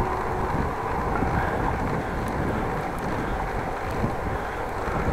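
Steady wind rush over the microphone of a camera on a moving bicycle, mixed with the rolling noise of the tyres on the road.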